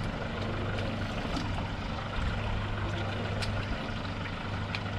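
Fishing boat's engine running steadily, a low hum under an even hiss, with a few faint short clicks.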